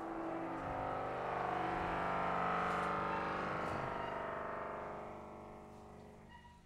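Saxophone duo holding a dense cluster of long sustained tones that beat against each other with a fast shimmer. The sound swells over the first two or three seconds, then slowly dies away near the end.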